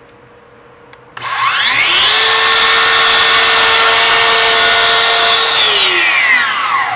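Makita LS002GZ 40V cordless slide compound mitre saw with a 216 mm blade, switched on about a second in. The motor and blade whine up to speed, run steadily for about three seconds, then wind down near the end as the trigger is released.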